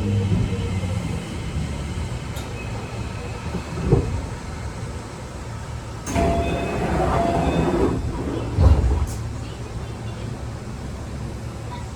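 Keio 8000 series electric train car with a Toshiba PMSM VVVF drive, heard from inside while running. Low motor tones fade early, then steady rolling noise continues. There are two heavier knocks, one about four seconds in and one near nine seconds, and a louder rushing stretch a little past halfway.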